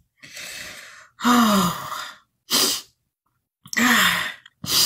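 A woman sighing and exhaling heavily several times, short breathy bursts with gaps between them, a couple of them voiced and falling in pitch.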